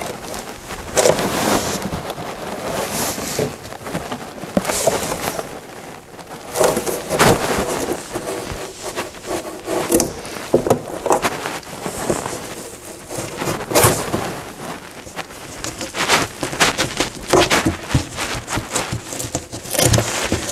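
Fabric-covered cardboard panel being pushed, scraped and knocked against the wooden inside of a trunk, with irregular rubbing and sharp knocks. It is a tight fit, and the panel catches on tacky spray adhesive.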